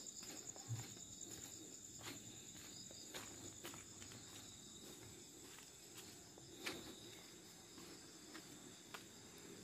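Night insects, crickets among them, chirring steadily in a faint high-pitched ring, with a few soft footsteps now and then on the path.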